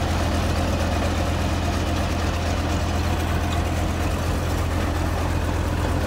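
Sakai single-drum road roller's diesel engine running steadily with a constant low hum as the machine drives over a crushed-stone road base.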